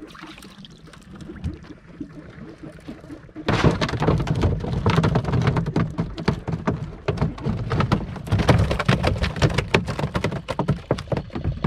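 Freshly caught rosy snapper thrashing: a rapid, irregular clatter of slaps and knocks starts abruptly about three and a half seconds in and keeps going. Before that there are only faint water and handling sounds.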